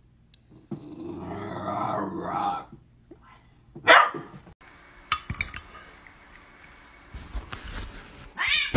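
A dog growling for about two seconds, then a short loud bark about four seconds in.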